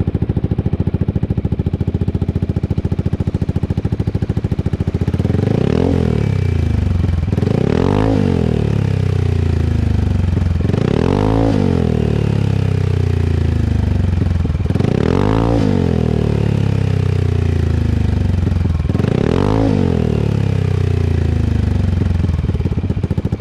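Yamaha XMAX scooter's single-cylinder engine running through an Aka-style exhaust with a titanium header and the dB-killer baffle removed, so it breathes through an open straight-through silencer. It idles steadily, then is revved in five short throttle blips, each climbing and dropping back to idle.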